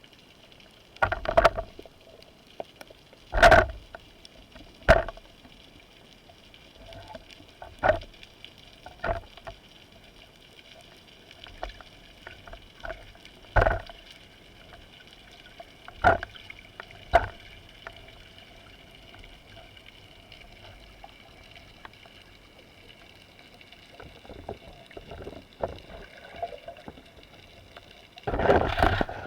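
Underwater recording during a spearfishing dive: about a dozen irregular sharp knocks and clicks, with a denser cluster near the end, over a faint steady underwater background.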